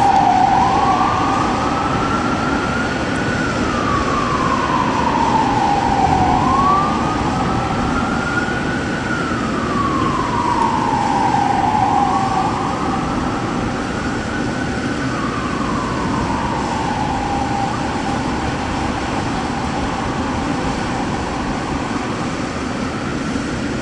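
Fire engine siren sounding a slow wail, one tone rising and falling about every six seconds, growing fainter in the second half, over steady traffic noise.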